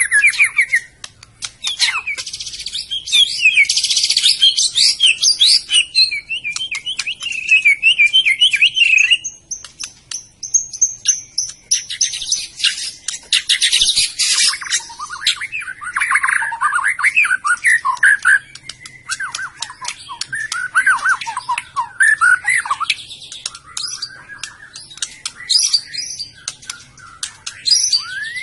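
White-rumped shama (murai batu, Medan type) singing: a long run of rapid, varied whistles, trills and chatter, dense for the first nine seconds, then after a brief break going on in shorter phrases with pauses between them.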